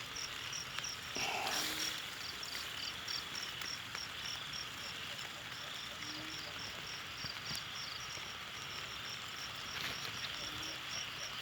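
Cricket chirping steadily, a high pulse repeating about three times a second, over a faint even hiss.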